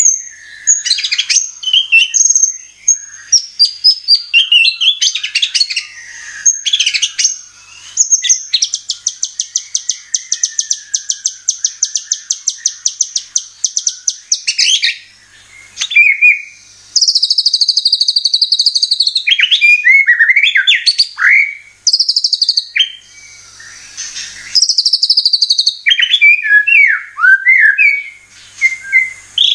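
White-rumped shama (murai batu) singing a loud, varied song of fluty whistles and sweeping notes, with a long run of fast repeated notes about a third of the way in. It is a lure song used to provoke caged shamas into singing.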